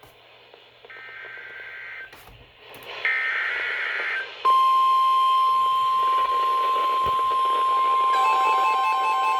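Midland WR-120 weather radio receiving a NOAA Weather Radio alert. Two short bursts of the warbling SAME header data tones are followed, about four and a half seconds in, by the loud steady Warning Alarm Tone. A pulsing beep joins in near the end. Together they announce a severe thunderstorm warning for the listener's county.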